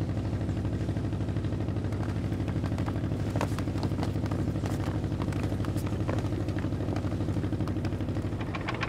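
Motorboat engine running steadily with a fast, even throb, as armoured patrol boats come in, with faint clicks and clatter over it.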